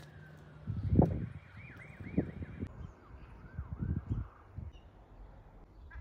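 A distant siren warbling, its pitch sweeping quickly up and down over and over, starting with a falling glide. Dull low thumps come and go beneath it, the loudest about a second in.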